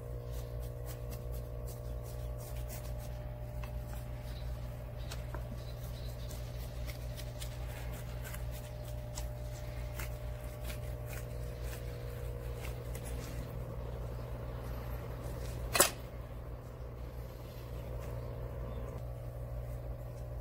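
Light clicks and scraping of a kitchen knife against a wooden cutting board as a fish fillet is skinned, over a steady low hum. There is one sharp knock about sixteen seconds in.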